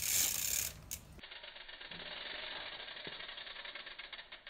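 About a second of louder rushing noise, then a mountain bike's rear freehub ratchet clicking rapidly and evenly as the bike coasts on its back wheel through a manual.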